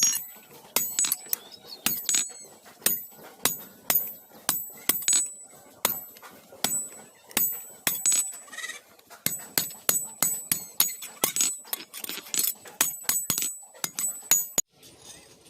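Hand hammer striking iron on an anvil in a run of blows, a few a second, each strike ringing with a high metallic ring. The hammering stops abruptly near the end.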